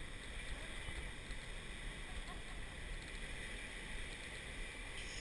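Steady wash of ocean surf breaking on a sandy beach, mixed with wind rumbling on the microphone.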